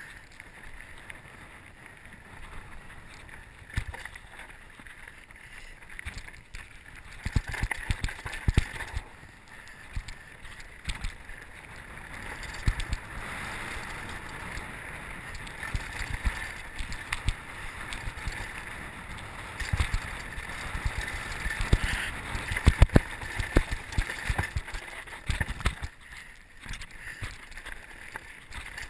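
Mountain bike running fast down a rocky dirt singletrack: tyres rolling and crunching over dirt and stones, with the frame and parts rattling and sharp knocks over bumps, the heaviest around the middle and about two-thirds of the way in.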